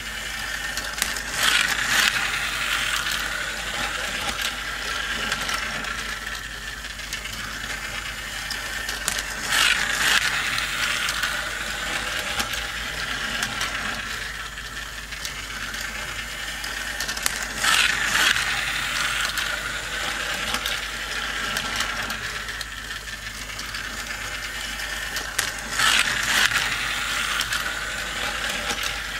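Motorized plastic toy race track running, its gears and lift mechanism whirring with a steady ratcheting click as small plastic toy cars ride around it. Louder plastic clatter comes four times, about eight seconds apart, as the cars come round each lap.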